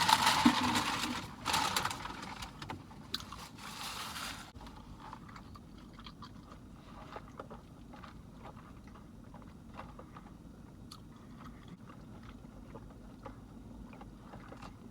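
Loud crinkling and rustling of food packaging for about four seconds, then it stops. After that it is quiet, with scattered faint clicks and small mouth sounds.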